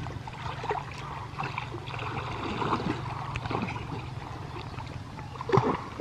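Pond water sloshing and splashing as people wade and swim, pushing hand nets through the water, with a louder burst of splashing about five and a half seconds in.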